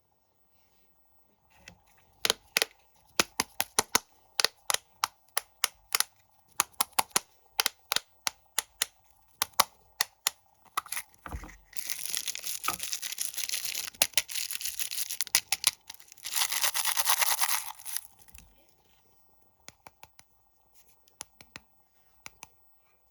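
Snack packaging being handled and unwrapped. A run of sharp clicks and taps, two or three a second, gives way to two spells of plastic wrapper crinkling and tearing, the first about four seconds long and the second shorter. A few scattered clicks come near the end.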